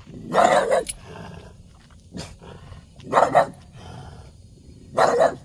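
A dog barking three times, a couple of seconds apart, alarmed by a statue.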